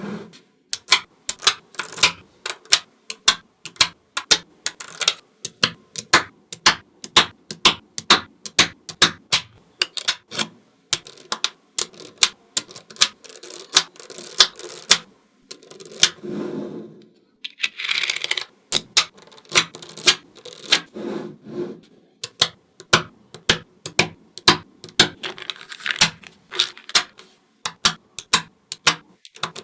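Small magnetic balls clicking sharply against each other as they are snapped into place one after another, several clicks a second at an uneven pace. A few longer rattling, scraping stretches come about halfway through.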